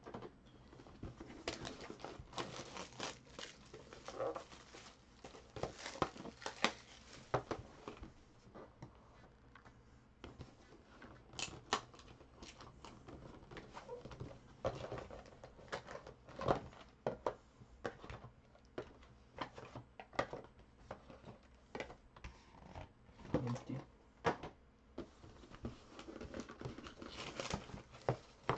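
Cardboard boxes of trading cards being handled and opened by hand: cardboard rustling and scraping, with irregular sharp taps and knocks as boxes are pulled apart and set on the table.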